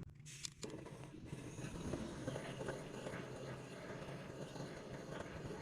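Gas torch flame hissing steadily as it heats a motorcycle crankcase half to free the crankshaft bearing and oil seal. The hiss settles in about half a second in.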